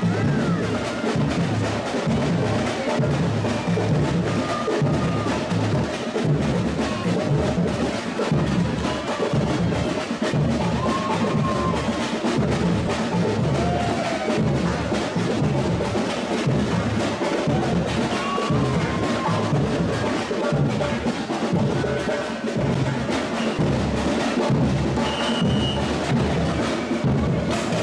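Live samba drum section (bateria) playing a parade beat: bass drums pounding a steady, even pulse under snare drums and smaller percussion.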